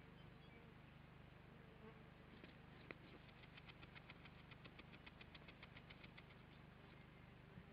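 Faint, rapid, even clicking from a kākāpō working its beak through its feathers while preening, about nine clicks a second for some three seconds, over a steady low electrical hum.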